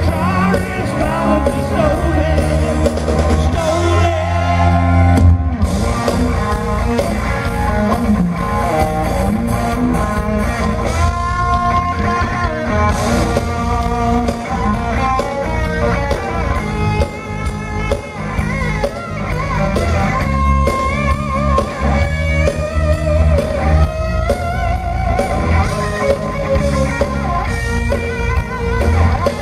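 Live rock band playing through a PA: electric guitars, drum kit and a male lead vocal singing.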